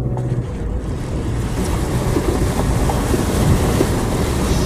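Vehicle engine running as it drives through puddles on a flooded dirt road, with water splashing. A rushing noise builds about a second in and stays loud over the engine hum.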